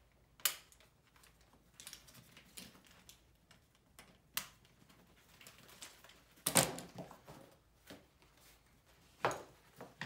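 Nylon pack straps and their buckles handled and fitted onto a stiff plastic frame sheet: light rustling and scraping, broken by four sharp clicks or knocks, the loudest about six and a half seconds in.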